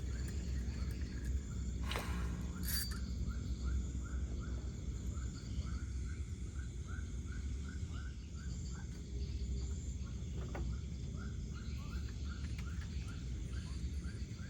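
Night-time outdoor ambience: an animal calling with short, repeated chirps, about two a second, over a steady low background rumble. Two sharp clicks come about two seconds in.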